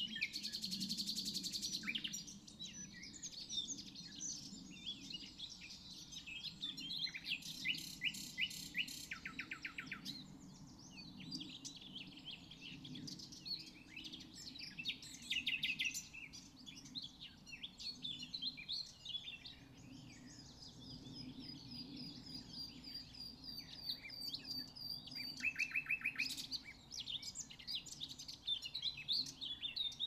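Common nightingale singing a rapid, varied song: phrases broken by several short, fast rattling runs of repeated notes, and past the middle a long run of high notes repeated at one pitch. A faint low hum runs underneath.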